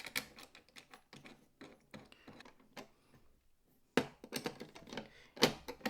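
Light clicks and taps of small metal and plastic parts being handled and screwed down while mounting the CPU cooler hardware on a motherboard, with a quieter stretch in the middle and a cluster of louder knocks near the end.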